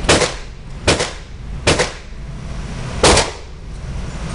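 DPMS Oracle Panther semi-automatic AR-15 rifle in 5.56x45/.223 firing four shots: three about a second apart, then a longer pause before the fourth. Each shot is sharp and echoes briefly in the concrete indoor range.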